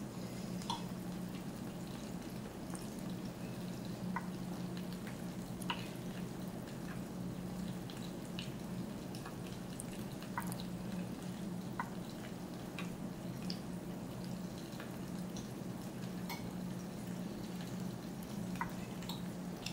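Quiet kitchen background: a steady low hum with faint, scattered ticks and clicks.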